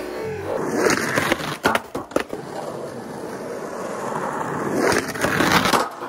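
Skateboard on asphalt: the board clatters down with several sharp knocks about a second in after a bailed slappy grind, then urethane wheels roll in, louder as the skater approaches, and the trucks grind along a painted curb edge near the end.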